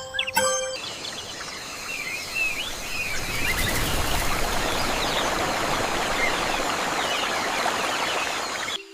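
Nature ambience: birds chirping in short calls over a steady rushing noise, which stops abruptly near the end. A few music notes ring out briefly at the start.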